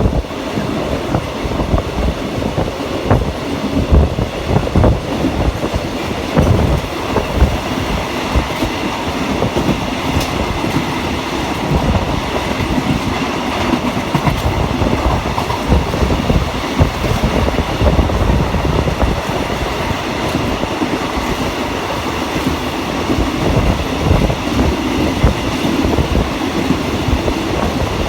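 Rapid train No. 171 running along the track: a steady rumble with the continual clatter of wheels over the rails.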